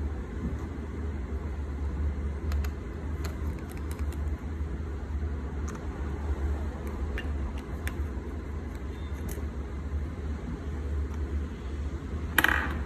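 Faint small clicks of a tri-point (Y-type) screwdriver and tiny screws being worked on an iPhone's internal shield, over a steady low hum, with one louder sharp click near the end.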